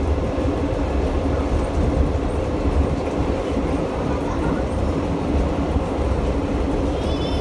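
Heard from inside the cab, the 'Tin Hare' railmotor is running along the track: a steady engine drone over the low rumble of the wheels on the rails. A faint short squeak comes near the end.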